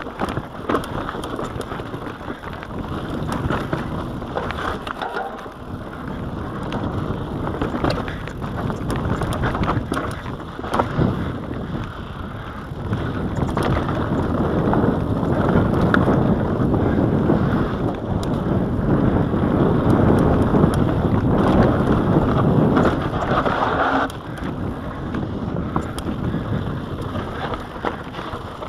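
Mountain bike rolling fast down a rocky dirt singletrack, heard from a body-mounted action camera. Wind buffets the microphone over the tyres' rumble on dirt and the bike's rattles and knocks over rocks. It grows louder through the middle stretch and drops suddenly a few seconds before the end.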